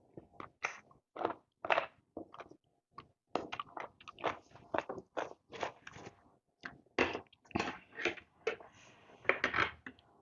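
A person chewing and biting food in a fast, irregular run of short wet smacks and crunches.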